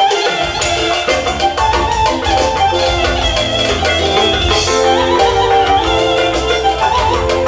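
Live band music: keyboard and drum kit with an electric violin playing a busy melody over a steady beat.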